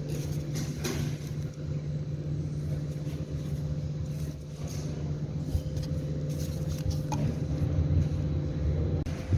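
A steady low mechanical hum with a faint constant tone, with a few light clicks over it.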